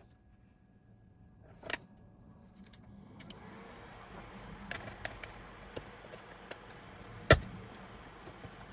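Small clicks and taps of a tool on the Mac mini's case as it is worked open, with one sharp, loud click about seven seconds in. A steady hiss comes in about three seconds in and runs underneath.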